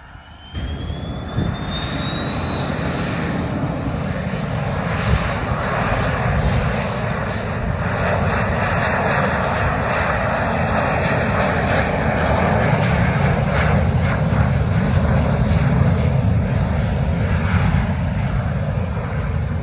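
Cessna Citation CJ4's twin Williams FJ44-4A turbofans spooling up to takeoff power: a high whine rises in pitch over the first few seconds and then holds, over loud, steady jet noise through the takeoff roll and climb-out.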